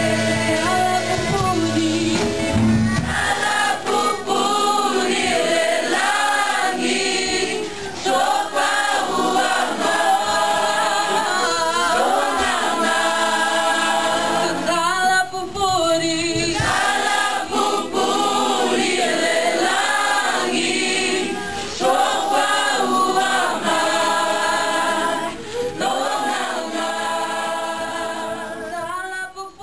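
Youth church choir singing a gospel worship song, many voices together, with a low accompaniment under the first few seconds; the singing fades down at the very end.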